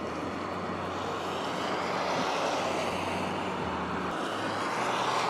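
Steady rushing noise of road traffic, with a low hum underneath, swelling slightly toward the end.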